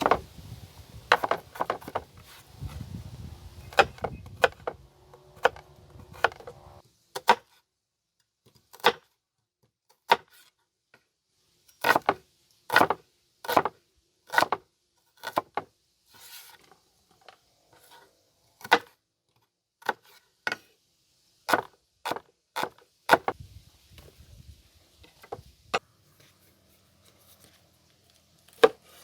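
A knife knocking on a wooden cutting board in single, irregularly spaced strokes, with pauses of up to a second or two between them.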